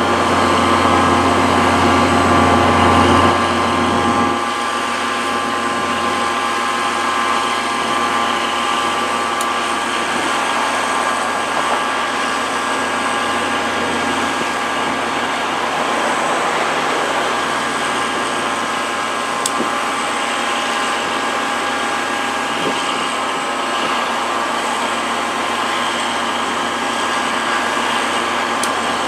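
NJ Transit GP40PH-2B diesel locomotive's EMD 16-645 engine running while the train stands still, a steady mechanical drone with several held high tones. A deeper rumble underneath drops away about four seconds in.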